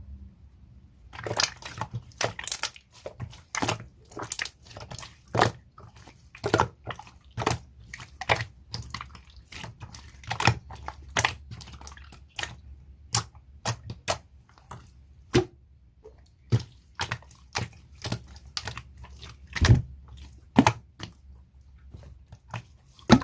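A large slime being pressed and worked by hand, making sharp, wet clicks and pops at an uneven pace of about one or two a second. The pops start about a second in.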